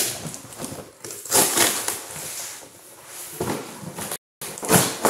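Toy packaging being handled and pulled at: several bursts of rustling and crinkling of cardboard and plastic as the ties and tape holding the figure are worked loose, with a brief cut-out just after four seconds.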